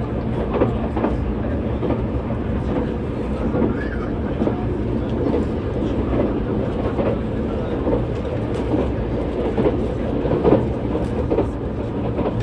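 Tobu N100 series Spacia X electric train heard from inside a passenger car while running: a steady rumble from the wheels and running gear, with frequent sharp clicks from the rails.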